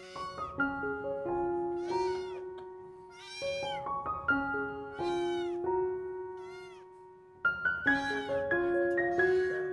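A young kitten meowing repeatedly, short high-pitched mews about once a second, over background music of sustained notes stepping through a simple melody.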